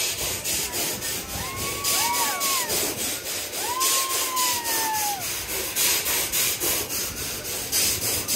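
Spinning fairground thrill ride running: a fast, steady clatter of its cars and arm mechanism. Two long high tones rise, hold and fall away over it, about a second in and again about four seconds in.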